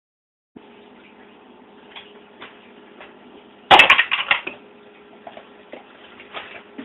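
Handling noise: light clicks, then a brief loud burst of crackling and clatter about three and a half seconds in, over a faint steady hum.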